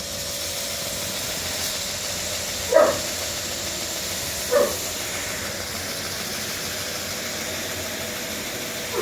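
12-inch double wheel knife grinder running smoothly, a steady hiss with a constant hum under it. A dog barks twice, about three and four and a half seconds in.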